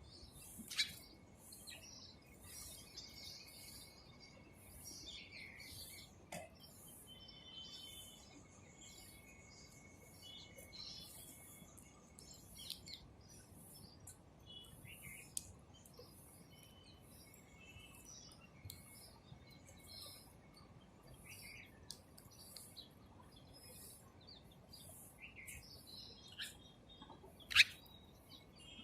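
House sparrows chirping: short, scattered chirps throughout, with one louder, sharp chirp near the end.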